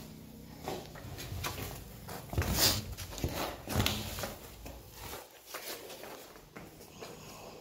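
Footsteps on a dirt shed floor and irregular knocks and rustles as a roped buffalo calf moves about close by, loudest in the middle.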